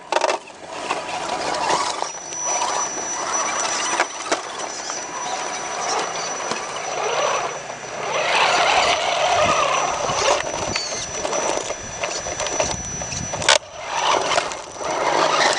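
Small electric RC rock crawler's motor and gears whining as it crawls over rock, the whirring swelling and easing, with a thin steady high whine from about two seconds in until near the end. A few sharp clicks or knocks stand out, the loudest near the end.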